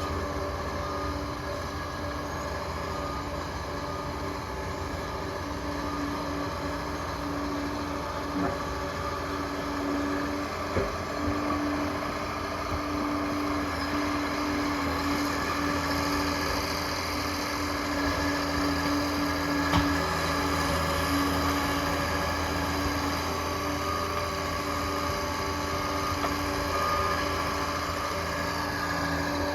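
Liebherr PR 746 crawler dozer's diesel engine running steadily under work, with a few sharp knocks.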